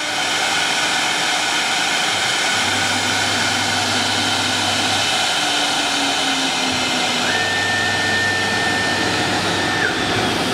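CIMTECH 1325 CNC wood router running, its spindle cutting into a wooden board with a steady, loud rushing whine. A low hum comes in twice, and a higher steady tone joins near the second half.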